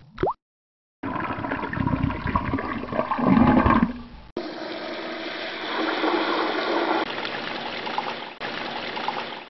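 Rushing, swirling water. It starts about a second in, swells loudest around three to four seconds, breaks off abruptly, then carries on as a steadier rush until it cuts off suddenly.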